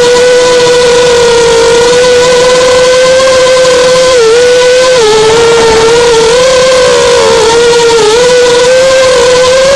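Brushless motors and propellers of a TBS Source One FPV quadcopter (iFlight Xing 2306 2450 kV motors turning Gemfan 5040 props): a loud, steady high whine that dips briefly in pitch several times in the second half as the throttle is eased.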